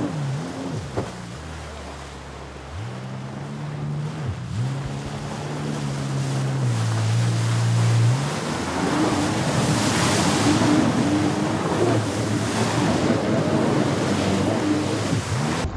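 Motorboat engine running, its pitch repeatedly dipping and rising. From about eight seconds in, a louder rush of water and wind on the microphone takes over, with the engine still heard underneath.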